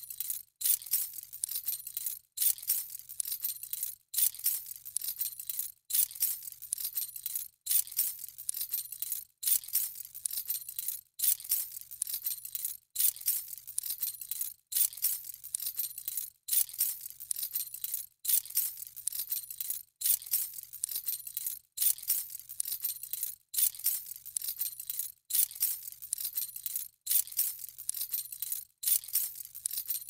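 A bunch of metal keys on a key ring jingling and clinking, the same short jangle repeating about every two seconds with a brief break between each.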